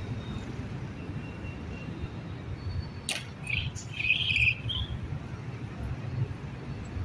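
Street traffic rumbling steadily. About three seconds in comes a single sharp clack, then a few lighter clicks and a short burst of bird chirping.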